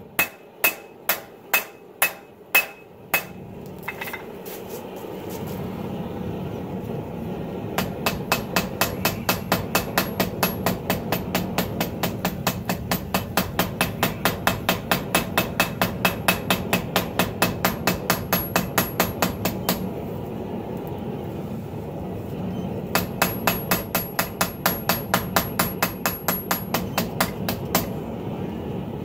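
Hand hammer striking a hot 80CrV2 steel blade on a 66 lb cast steel anvil while drawing out the blade. A few spaced blows come first, then nothing for several seconds. After that come two long runs of quick sharp metallic blows, about three a second, with a break of a few seconds between them.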